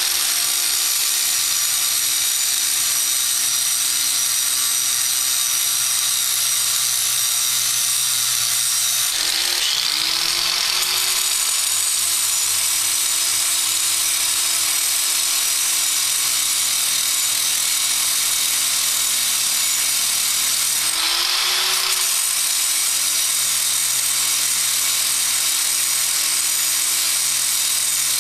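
4.5-inch angle grinder cutting through the steel shackle of a padlock held in a vise: a steady high-speed motor whine under a harsh grinding hiss. Twice, about nine and twenty-one seconds in, the pitch dips briefly and climbs back as the grinding lets up and resumes.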